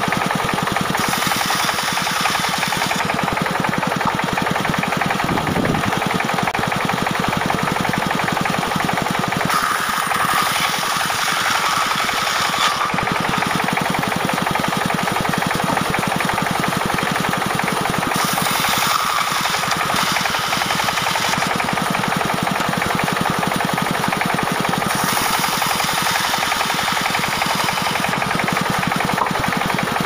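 Band sawmill running under a Dongfeng diesel engine, the engine going steadily with a fast knocking beat while the blade rips lengthwise through a log. A hissier cutting noise swells and fades several times.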